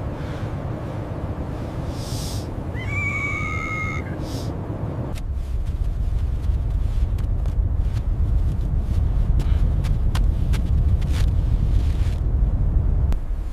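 Blizzard wind rumbling steadily and getting louder about five seconds in, with a brief high whistling tone about three seconds in.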